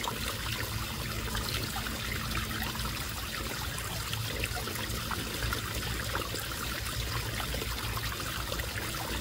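Steady trickle of running water from a garden pond, with many small splashing ticks and a low steady hum underneath.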